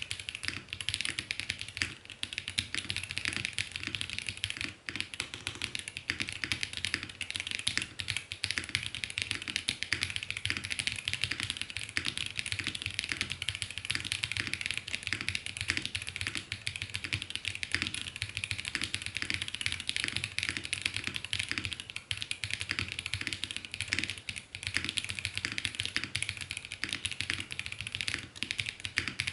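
Continuous fast typing on a QK65 custom mechanical keyboard with lubed Yok Polar Panda tactile switches, a POM plate and GMK keycaps: a dense, unbroken run of key clicks.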